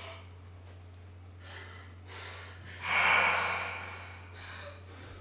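A person breathing audibly in several short breaths, the loudest a sudden gasping rush about three seconds in that fades away over about a second.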